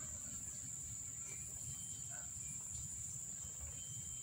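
A steady, high-pitched insect drone, with a faint uneven low rumble beneath it.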